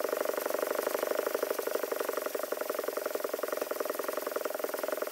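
Cast cylinder head being scrubbed back and forth on 220-grit sandpaper over a flat glass sheet, hand lapping the warped deck flat. It makes a steady, rapid, evenly pulsing rasp.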